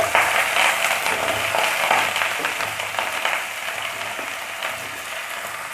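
Chopped vegetables (pumpkin, okra, cauliflower, beans and brinjal) sizzling as they go into hot oil in a frying pan, loud at first and dying down gradually, with a few light clicks.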